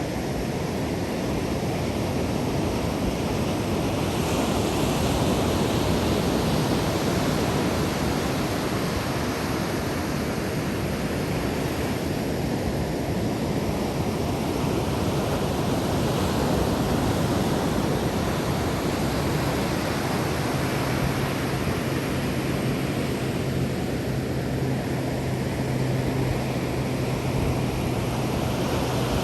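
Ocean surf breaking on a sandy beach: a continuous rush of water noise that swells and eases slowly as waves come in and wash back.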